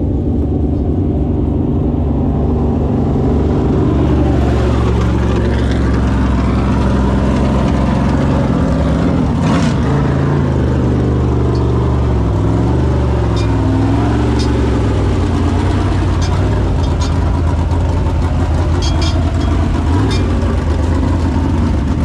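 Dirt late model race car engines running loud and steady. Several engine notes rise and fall across each other in the middle as they rev up and ease off.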